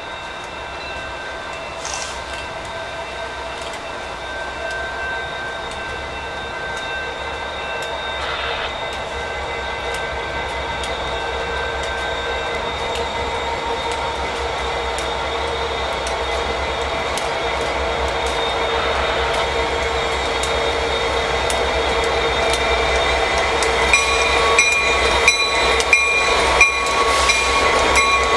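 Two NYSW diesel-electric locomotives running light, their engines droning with steady held tones that grow louder as they approach. Near the end, as they pass close by, the wheels click regularly over the rail joints.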